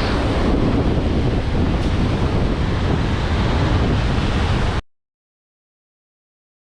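Wind buffeting the microphone over the wash of waves, a loud steady rushing with a heavy low rumble, which cuts off suddenly to dead silence about five seconds in.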